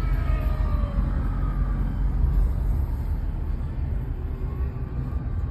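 Steady low rumble of a Toyota car driving, heard from inside the cabin. Faint tones slide downward in pitch during the first couple of seconds.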